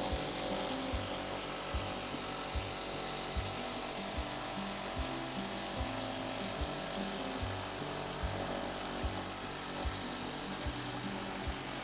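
Background music with a steady, slow beat of about one thump every 0.8 s under a low, stepping bass line.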